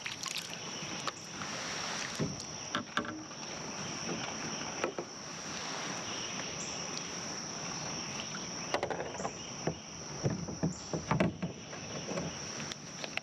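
Fishing kayak on the water: water sloshing against the hull with scattered knocks and clicks, busiest near the end, over a steady high-pitched insect drone.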